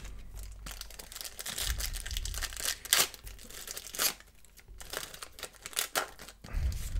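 A foil-lined football-card pack wrapper being torn open and crinkled in the hands, with several sharp crackles.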